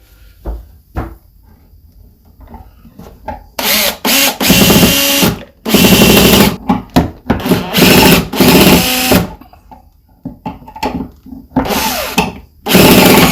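Power drill driving screws into a plywood cabinet box, in four runs of a second or two each, with quieter knocks and handling between them.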